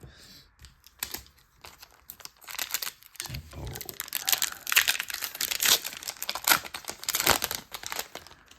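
Foil Pokémon booster pack wrapper being torn open and crinkled by hand, a dense run of crackling and tearing that builds after about a second and is busiest through the middle and latter part.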